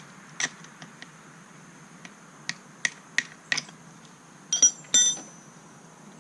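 Sharp hard taps on the trimmer head's parts, a run of four at about three a second, then two louder clattering knocks with a brief ring near the end.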